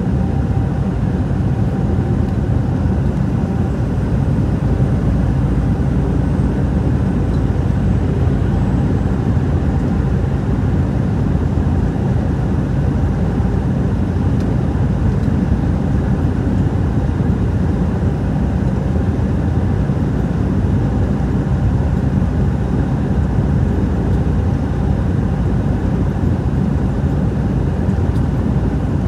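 Steady drone of a motor vehicle on the move: a low engine hum under road noise, with no change in speed.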